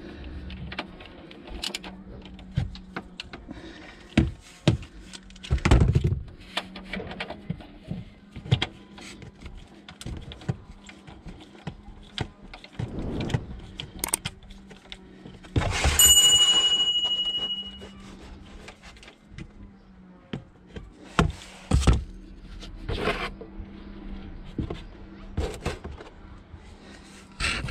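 Ratchet wrench clicking and metal tool knocks as the engine oil drain plug is worked loose from underneath the car. About sixteen seconds in, an added notification chime rings out loudly for a couple of seconds.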